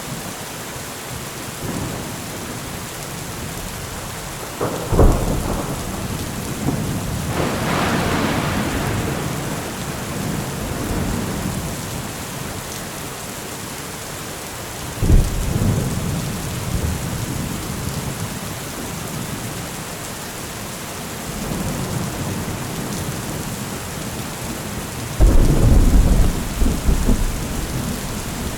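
Thunderstorm: steady heavy rain with thunder. Sharp thunder cracks about 5 and 15 seconds in, a rolling rumble swelling around 8 seconds, and a loud, low, deep rumble near the end.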